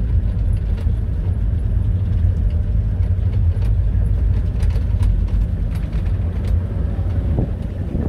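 Interior noise of a 4x4 safari vehicle driving on a rough dirt track: a loud, steady low rumble from the engine and tyres, with scattered rattles and knocks from the cab as it bounces.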